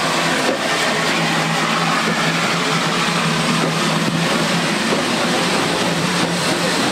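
Union Pacific Challenger 4-6-6-4 steam locomotive making a loud, steady rushing noise with a low, even hum under it.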